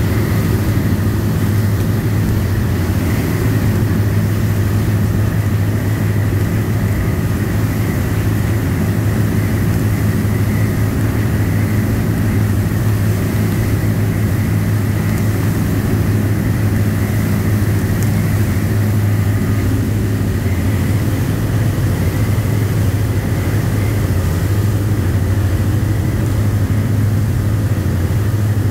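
Engines of a Paul Mann 67 sportfishing yacht running steadily at speed, with a deep, even drone. Rushing water from the wake and wind noise sit under it.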